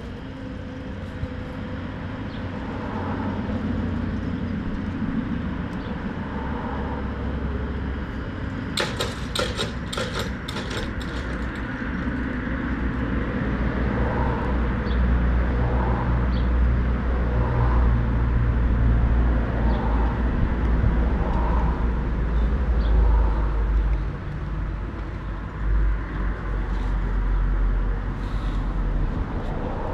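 Outdoor ambience at a railway level crossing with the barriers closed for an approaching train. A low rumble grows louder from about twelve seconds in, a brief run of rattling clicks comes around nine to eleven seconds, and faint short chirps sound now and then.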